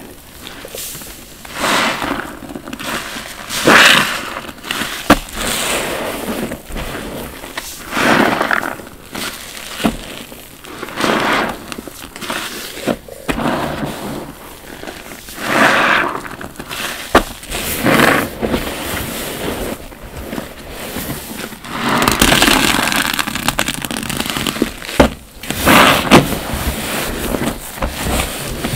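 Foam-soaked bath sponges squeezed by gloved hands in soapy water: wet squelching and crackling lather in repeated squeezes about every two seconds, with a few sharp pops.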